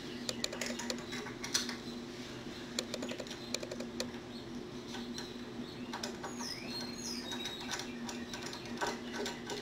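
Small metal clicks and taps of steel washers being handled and fitted onto the flange bolts of a Benchcrafted end vise, scattered and irregular, over a steady low hum.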